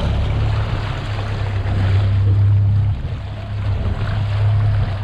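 Fishing boat's engine running with a steady low drone, under the rush of water against the hull and wind.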